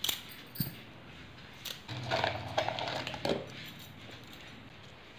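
Bangles clinking against each other as they are handled on the wrist, a few separate sharp clinks. A low, steady, drawn-out voice-like sound runs for about a second and a half in the middle.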